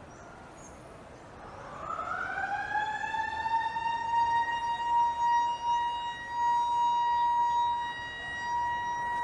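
A siren winds up, rising in pitch from about a second and a half in, then holds a steady high tone.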